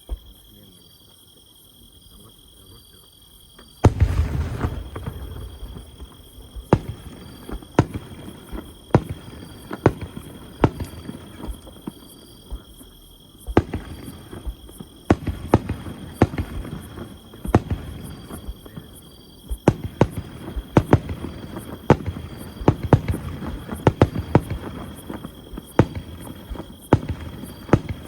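Aerial fireworks bursting: a deep boom about four seconds in, then a steady run of sharp bangs and crackle, at times several a second.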